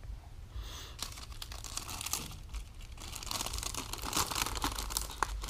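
Clear plastic kit bag crinkling and crackling as hands handle it and pull it open, picking up about a second in and getting busier toward the end.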